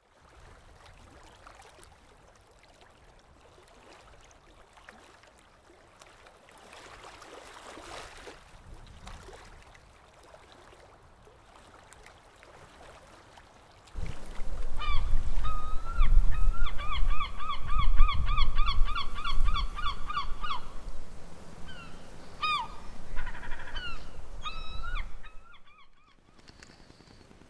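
Gull calling over wind buffeting the microphone. About halfway in come a few single calls, then a fast run of about a dozen repeated calls, then more scattered calls; before that there is only faint background.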